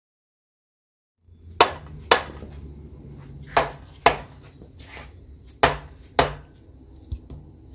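Seven sharp metal knocks, mostly in pairs about half a second apart, as main bearing caps and the crankshaft are handled on a Chevy 230 straight-six's cast-iron block. A low steady hum runs underneath.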